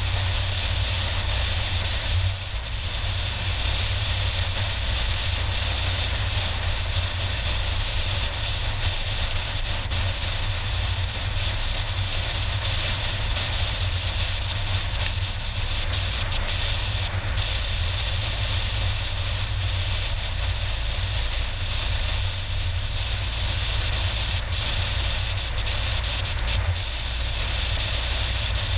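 Steady road and engine noise of a car driving, picked up inside the car by a dashcam.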